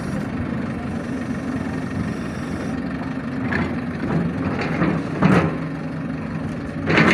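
Heavy diesel engine of the pole-work machinery running steadily at a low, even pitch. A few short louder sounds rise over it in the second half, the loudest near the end.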